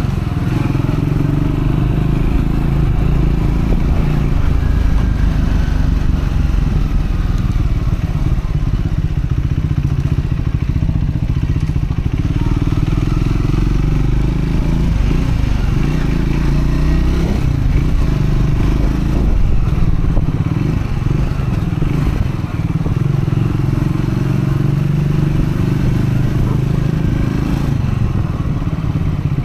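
Triumph Scrambler 400X's single-cylinder engine running on the road, its note rising and falling with the throttle. The engine is new and being run in.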